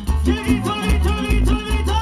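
Live band playing an instrumental tropical cumbia passage: horn lines from trumpets and saxophones over bass, drum kit and congas, with a steady beat of bass notes about twice a second.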